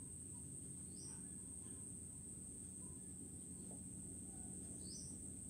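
Steady high-pitched insect drone with two short rising chirps, one about a second in and one near the end, over low background noise.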